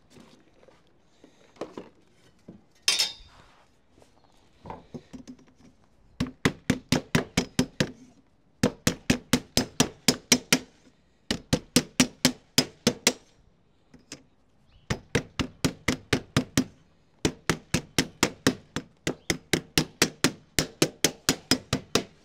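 A tool striking sheet lead in quick, even runs of about five blows a second, five runs with short pauses between them, as the welts of a lead capping piece are knocked up and dressed. The runs are preceded by a few scattered handling clinks.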